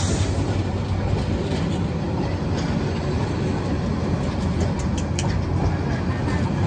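Bangladesh Railway intercity passenger coaches rolling past on the track: a steady low rumble of wheels on rail, with a few sharp clicks about five seconds in.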